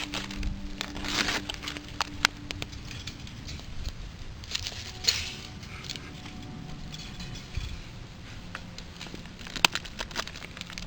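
Irregular crackling and snapping of wood, sharp scattered clicks with a few louder snaps near the end.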